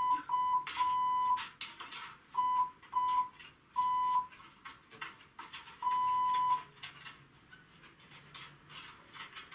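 An electronic beep tone sounding in a string of about seven short and longer bleeps, like a censor bleep, with faint clicks between them; the bleeps stop about two-thirds of the way through, leaving only faint ticks.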